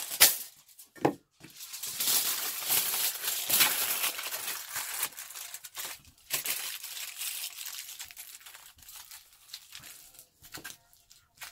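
A sheet of aluminium foil torn off its roll at the start, then crumpled and squeezed by hand into a ball: dense crinkling and crackling that thins to softer, sparser crackles over the last few seconds.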